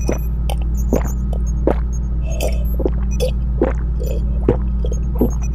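Sound-effect track of a steady low hum with a soft thump about every three-quarters of a second, and a few short bubbly squelches in the middle and near the end.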